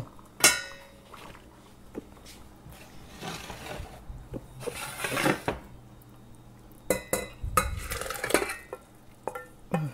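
Stainless steel pots clinking and knocking, with a sharp ringing clink about half a second in, as white bean sauce is poured and scraped from a saucepan into the pot of pasta. There are stretches of scraping around the middle and a cluster of knocks and clinks near the end.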